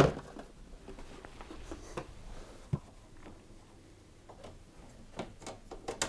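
Faint, scattered clicks and light knocks of a screwdriver and the dryer's metal and plastic parts being handled as screws are undone.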